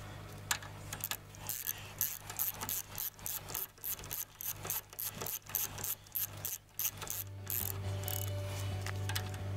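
Ratchet wrench clicking in quick runs of strokes as a nut is worked on a leaf-spring mount. The clicking stops about two seconds before the end.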